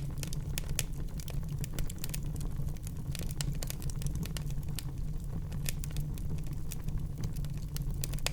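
Wood fire burning in a fireplace: a steady low rumble of the flames with irregular sharp crackles and pops from the burning logs.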